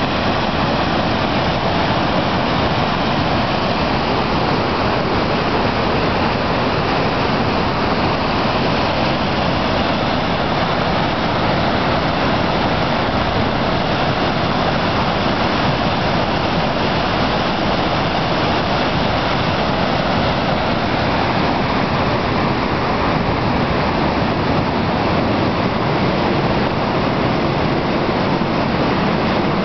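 Creek in flash flood, running up to three feet deep, rushing and tumbling over a low weir in a steady, loud roar of white water.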